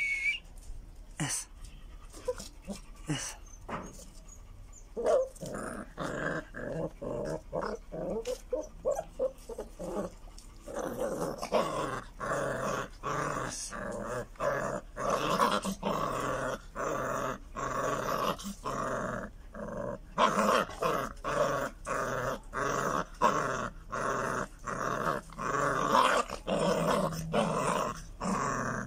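Pit bull puppies growling as they play-fight, over short scuffling knocks. The growling is sparse at first, comes in from about five seconds in, and is almost continuous from about eleven seconds in.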